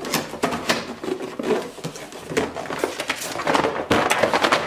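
Cardboard box rustling and scraping as a plastic Dog Tornado puzzle toy is slid and shaken out of it, with a run of irregular clicks and knocks.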